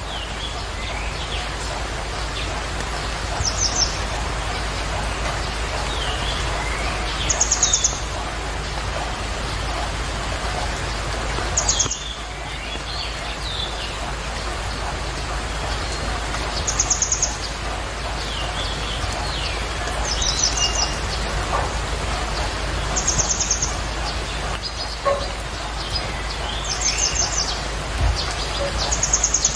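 A steady sizzling hiss from vegetables cooking in an aluminium pot on the stove. Birds chirp over it every few seconds, with short high trills and small rising and falling chirps.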